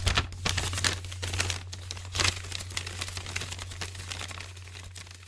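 Intro sound effect: dense crackling, crinkling noise like static over a steady low hum, louder in the first couple of seconds and then gradually fading away.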